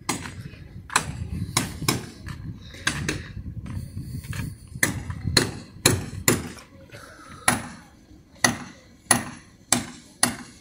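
Repeated sharp knocks, irregularly spaced at about one every half second to a second, over a low rumble that dies away after about six seconds.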